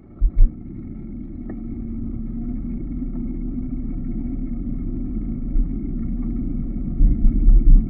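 Steady low rumble of wind and motion noise on a moving camera's microphone, with a faint steady hum underneath. There are heavy wind thumps just after the start and again near the end.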